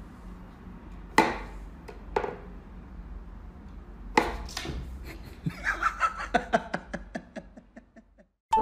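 Sharp wooden clicks from a wooden pop-up cat toy as its pegs are pushed and the pieces snap up in the holes: three separate knocks, then a quick run of fainter taps and clicks.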